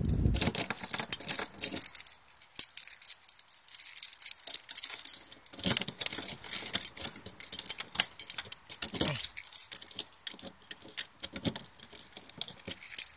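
A bunch of keys on a ring jangling and clicking against the metal lock of a camper's exterior compartment door as a key is fitted to it. The small metallic jingles come irregularly throughout.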